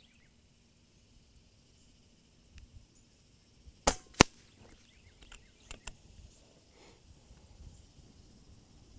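One shot from an FX Royale 500 .25 regulated PCP air rifle: two sharp cracks about a third of a second apart, the second the louder. A few faint clicks follow.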